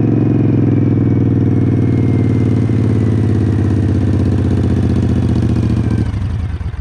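Racing riding lawnmower's engine running steadily and loud as it drives. About six seconds in it cuts off and winds down with a few slowing chugs.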